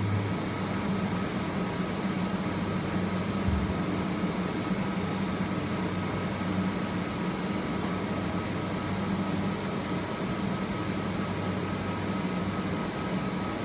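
CNC vertical machining center running: a steady mechanical hum with a thin high whine over it.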